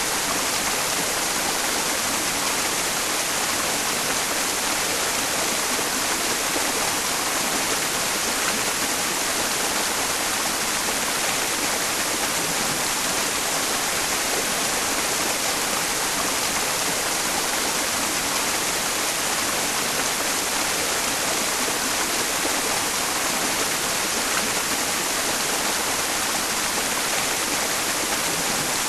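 A mountain stream's rushing water blended with white noise: a steady, unchanging hiss that is brightest in the treble.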